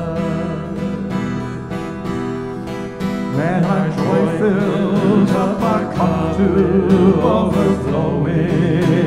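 Hymn accompaniment led by an acoustic guitar, playing between sung lines. About three seconds in, a melody line with wavering pitch comes in over the held chords and the music grows louder.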